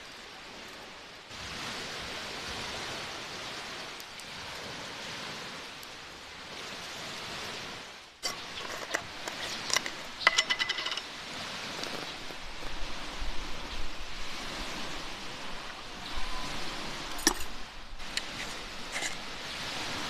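Steady rushing of surf at first; then, from about eight seconds in, sharp clinks and taps of metal tin lids, a glass jar and a French press being handled on a wooden table, with a brief ringing metallic clink a little after ten seconds.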